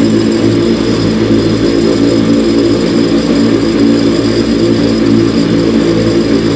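An MWfly aircraft engine running steadily at about 3,300 rpm, holding an even engine note.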